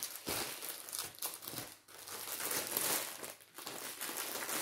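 Packaging crinkling and rustling as it is handled and put away, in irregular bursts with a couple of short pauses.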